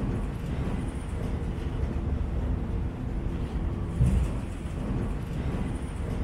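Train rumbling across a steel railway bridge, a steady low rumble with a heavier surge about four seconds in.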